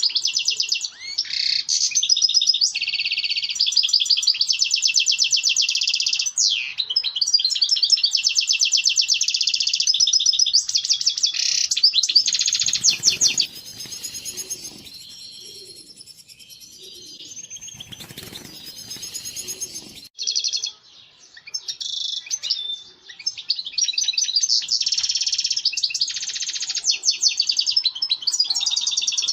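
European goldfinch singing its courtship song: a long run of fast, high twittering and trills, with a quieter break of several seconds around the middle.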